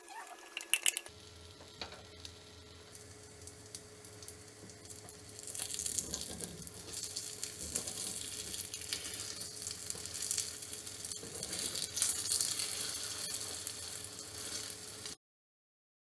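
Egg batter sizzling as it fries in a small iron karandi (tempering pan), with a spoon scraping and stirring in the pan. A few sharp clinks come about a second in; the sizzle grows louder about five seconds in and stops abruptly near the end.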